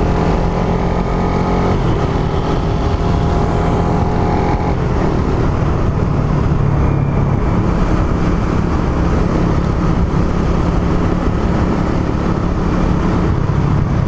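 Suzuki Raider R150 Fi's single-cylinder four-stroke engine, heard from onboard, pulling up through the gears at low revs. Its pitch climbs, breaks off briefly for a gear change about two seconds in, then climbs again. After about five seconds its note gives way to steady wind and road rush as the bike cruises.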